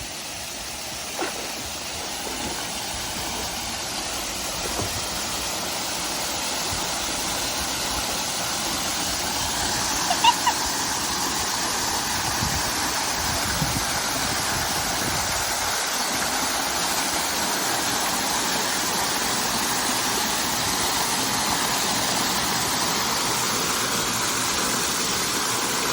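Waterfall pouring into a pool: a steady rush of falling water that grows louder over the first several seconds, then holds steady.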